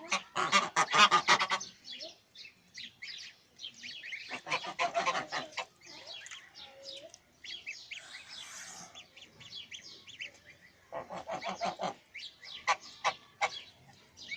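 Geese honking in rapid bursts of calls about a second in, around five seconds and around eleven seconds, with thin high peeping of goslings scattered between.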